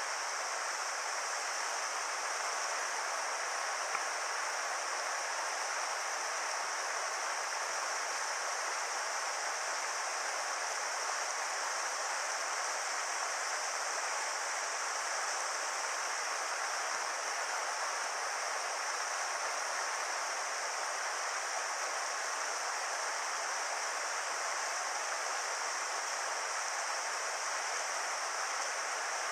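Steady rushing of a mountain river's water over rocks, an even hiss.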